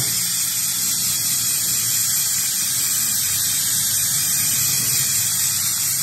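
Aerosol air filter oil spraying from a can onto a foam air filter: one long, steady hiss.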